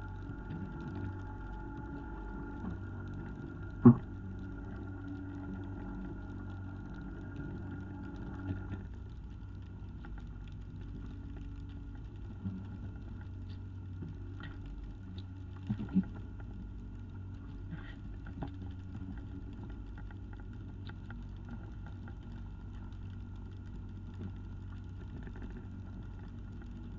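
Fishing boat's engine running steadily at sea, with a few sharp knocks on board, the loudest about four seconds in.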